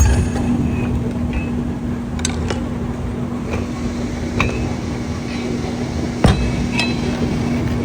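Toyota Corolla engine running, with a steady hum and irregular sharp metallic knocks, the loudest about six seconds in: the engine knock that is the subject of the clip.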